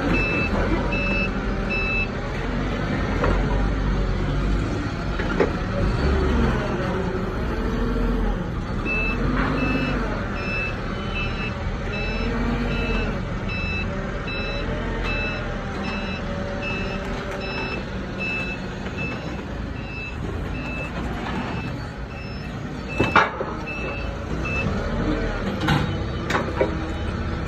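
Forklift engine running and revving as it lifts and reverses with a load, its reversing alarm beeping in a steady repeated pattern for most of the time, with a couple of sharp knocks near the end.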